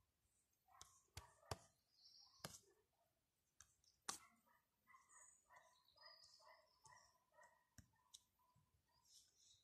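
Near silence, broken by a few faint sharp clicks and, in the middle, a faint run of short repeated sounds.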